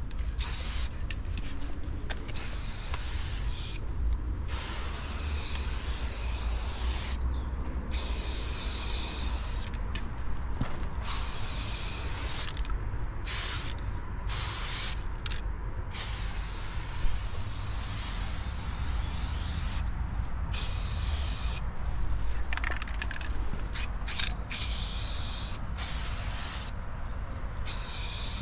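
Aerosol spray paint can hissing as paint goes onto a wall, in a series of long and short bursts with brief breaks between them. A steady low rumble runs underneath.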